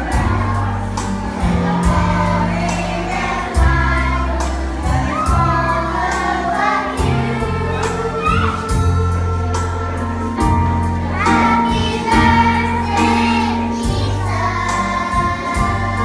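A group of children singing along to upbeat music with a steady beat and bass line.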